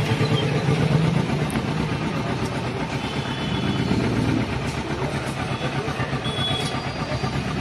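Kawasaki Vulcan S 650's parallel-twin engine idling steadily.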